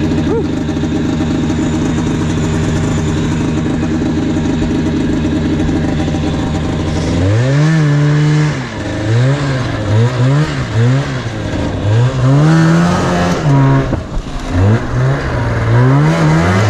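Yamaha Enticer 340 snowmobile's two-stroke engine running steadily, then from about seven seconds in revved again and again, the pitch rising and dropping in short bursts of throttle as the sled is driven up the slope.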